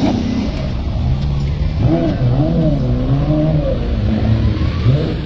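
Ferrari sports cars driving past one after another, their engines revving with the pitch rising and falling repeatedly.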